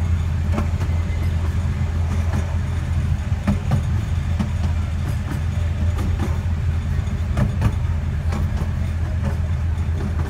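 Open carriage of a 12-inch gauge miniature railway rolling along the track: a steady low rumble, with irregular sharp clicks from the wheels over the rail joints.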